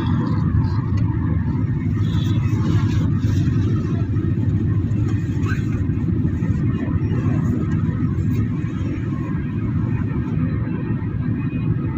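Steady low rumble of road and engine noise heard inside a moving car's cabin, cruising along a highway.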